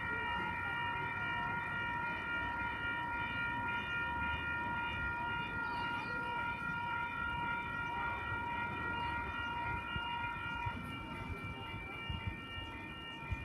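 Oscar electric passenger train at the platform, its electrical equipment giving a steady high whine of several even tones over a low rumble. The lowest tone of the whine drops out about eleven seconds in.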